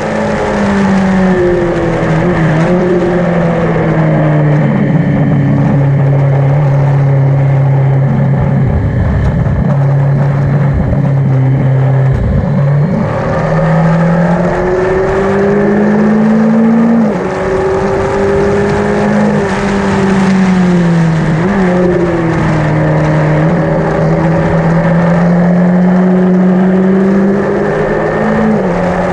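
Yamaha XJ900N's air-cooled inline-four engine running hard on track, its pitch holding for a few seconds at a time, then dropping and climbing again as the bike slows and accelerates.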